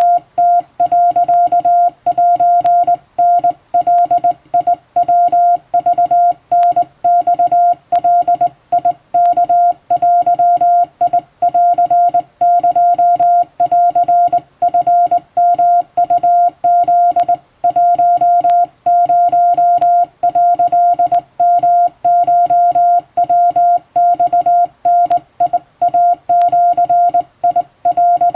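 Japanese Wabun Morse code sent by hand on a telegraph key: one steady tone keyed on and off in dots and dashes, with short gaps between characters.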